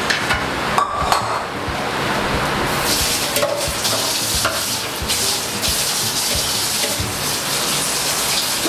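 Hands squishing and rubbing a raw turkey in a metal roasting tray: a steady wet crackling and squelching, denser from about three seconds in.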